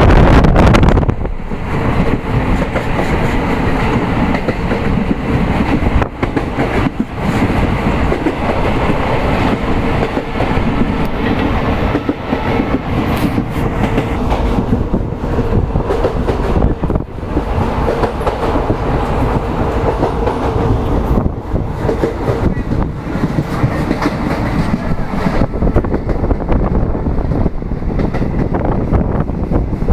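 Passenger train running along the rails, heard from aboard: a steady rumble with scattered clacks of the wheels on the track. A louder rush of wind on the microphone dies away about a second in.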